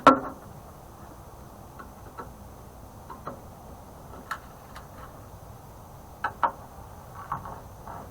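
Metal clatter from hand work on a microwave's sheet-metal casing while its screws are being removed: one sharp clank with a short ring at the start, then scattered light clicks and taps.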